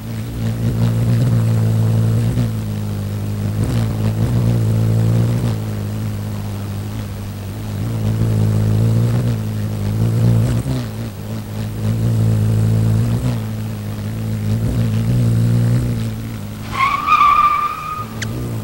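Hummingbird wing-hum sound effect: a steady low buzzing hum that swells and fades in waves. A short high squeal cuts in near the end.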